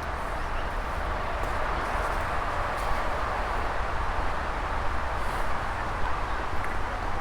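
Wind buffeting the camera microphone as a low rumble, over a steady outdoor hiss.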